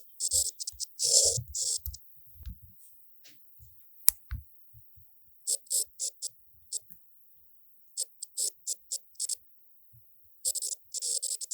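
Galaxy S23 Ultra S Pen writing sound effect: short, scratchy pencil-on-paper scribble strokes in quick groups with pauses between. A few soft low knocks come in the first couple of seconds, and one sharp click about four seconds in.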